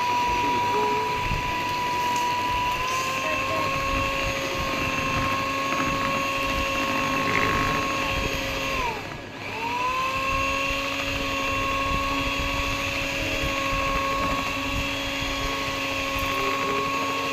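Philips electric hand mixer running steadily, its beaters whisking batter. The motor's pitch steps up slightly about three seconds in, then winds down briefly and spins back up about halfway through.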